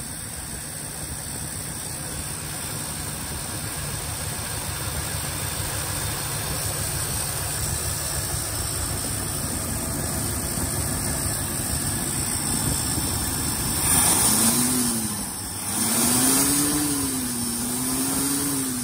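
1946 Chevrolet half-ton pickup's 216 inline-six running at a steady idle, then revved by hand at the carburetor throttle linkage: one short blip, then a longer rev that rises and falls twice near the end. It runs on fuel delivered by a freshly cleaned mechanical fuel pump.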